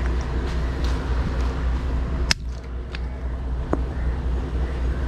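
A hand-held stone striking a small sea shell on a rock boulder: one sharp crack about two seconds in, then two lighter knocks, over a steady low rumble.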